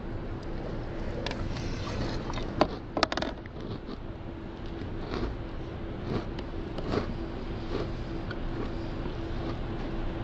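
A spoon scraping and clicking against a plastic food container, loudest in a quick cluster about three seconds in, with dry cereal being crunched and chewed between scoops, over a faint steady hum.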